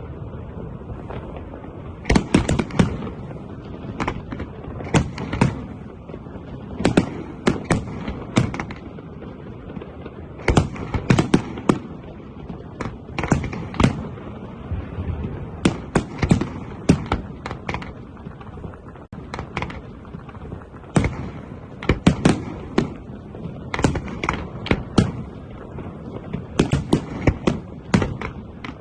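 Aerial fireworks display: shells bursting in quick clusters of sharp bangs every second or two, over a steady background rumble.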